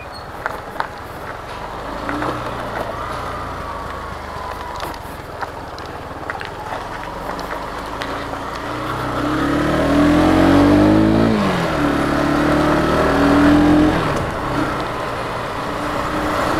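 Motorbike engines running as riders pull away. About nine seconds in, one engine note climbs and gets louder, then falls sharply and settles again.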